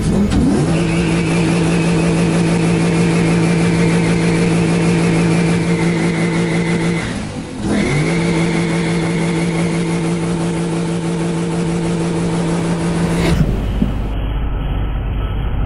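Swapped V8 in an FSO Polonez held at steady revs in a burnout, with a steady high tyre squeal over the engine note. About halfway through the throttle lifts briefly, then goes straight back in. Near the end the sound cuts abruptly to a deep steady rumble.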